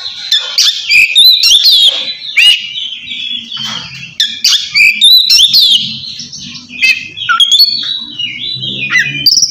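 Oriental magpie-robin singing loudly in the 'ngeplong' style: a rapid, unbroken run of clear whistled notes, quick up-and-down glides and sharp clicking notes.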